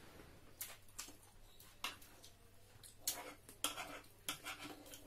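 Quiet eating sounds: scattered short wet smacks and clicks of chewing and of fingers working rice and curry on ceramic plates, several a second at uneven intervals.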